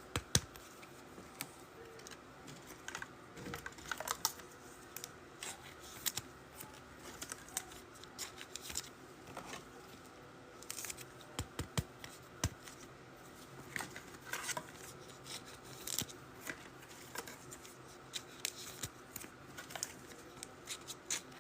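Faint handling of trading card packs and cards: scattered soft clicks, taps and rustles of wrappers and cards.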